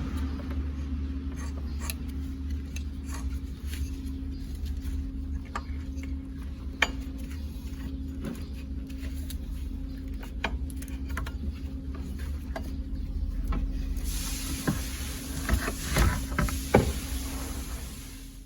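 Daihatsu Hijet van's engine running steadily, with scattered light clicks and knocks over it; a hiss rises about three-quarters of the way through.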